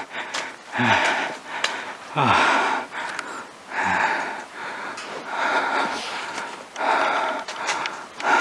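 A person breathing hard while climbing on foot: deep, loud breaths about every second and a half, several starting with a low, falling groan.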